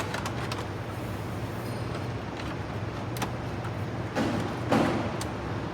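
Plastic dash trim plate being handled and snapped into place: a sharp click at the start, a few light clicks, then two louder scraping knocks a little past four seconds in, over a steady low hum.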